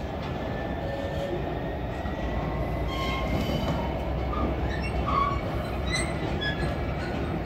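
Loaded train of PCA cement tank wagons rolling past, pulling away from the station. A steady rumble, with short high-pitched wheel squeals over the second half.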